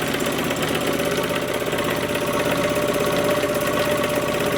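Old stationary diesel engine running steadily, with a rapid even beat and a steady whine over it.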